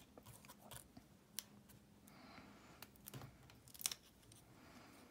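Faint handling sounds of a small die-cut paper flower being picked up with a piercing tool and worked between the fingers: a few light clicks and a soft paper rustle, the loudest click a little before the end.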